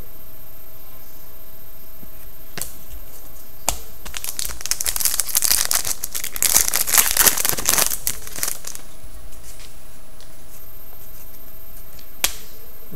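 A trading card pack wrapper being torn open and crinkled by hand, a crackly rustle lasting about four seconds in the middle. A few single sharp clicks come before and after it.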